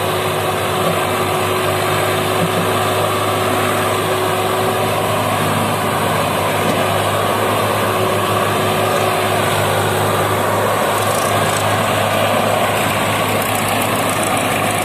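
Swaraj 744 tractor's three-cylinder diesel engine running hard and steady under heavy load, pulling a fully loaded trolley.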